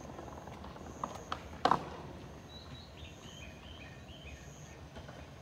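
Quiet night ambience: a short high chirp repeats about once a second, and from about two and a half seconds in a run of short high notes steps up and down. A few sharp knocks fall around one to two seconds in, the loudest near the two-second mark.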